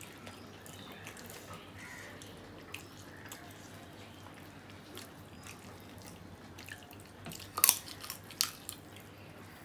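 Quiet eating sounds: wet squishing of rice and curry worked by hand, and chewing, with a few sharp clicks about three-quarters of the way through as a piece held in the hand is bitten.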